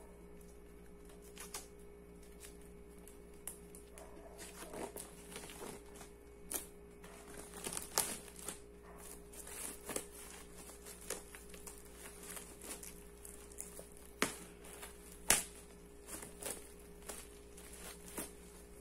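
Thin plastic shrink wrap crinkling and tearing in irregular crackles as it is picked at and peeled off a hardcover book, with a couple of sharper cracks about three-quarters of the way through.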